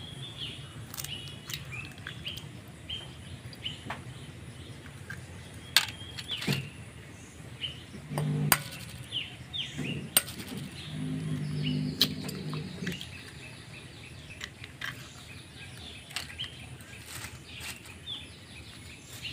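Eggs cracked one at a time against a steel bowl, giving sharp clicks every second or two. Birds chirp throughout.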